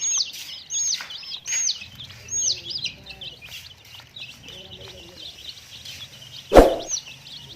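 Baby chicks peeping: many quick, high, chirping calls, thickest at first and thinning out. A single sharp knock about six and a half seconds in.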